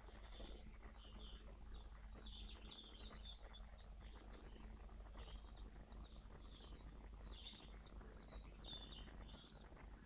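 Faint small songbirds chirping: short high calls that come again every second or so, over a steady low hum.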